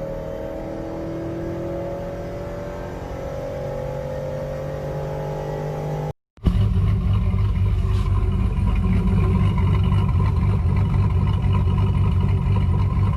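Chevrolet Avalanche's 5.3-litre V8, fitted with a stage 3 high-lift cam, running with a steady, slowly shifting note. About six seconds in there is a cut to a louder, choppy, uneven exhaust sound.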